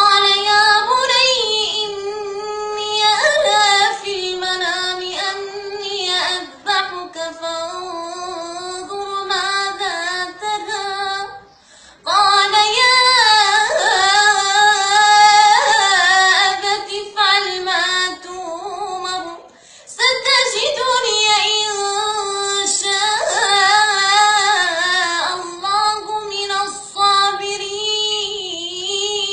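A single high voice, a child or a woman, singing long ornamented phrases with wavering held notes, pausing briefly twice.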